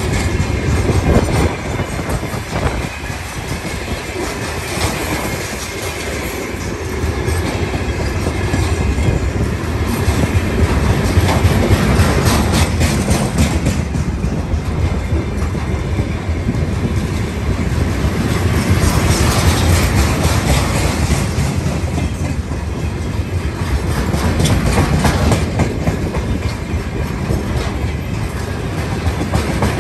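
Long freight train of hopper wagons and tank cars rolling past at steady speed: a continuous heavy rumble of steel wheels on rail, with repeated clusters of clacks as the wheelsets cross rail joints.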